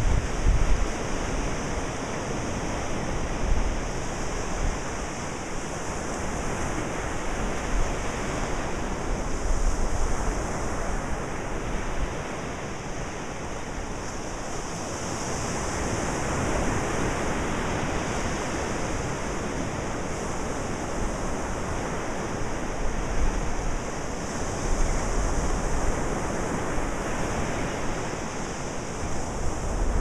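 Ocean surf breaking and washing in, swelling and easing slowly, with wind rumbling on the microphone near the start and again near the end.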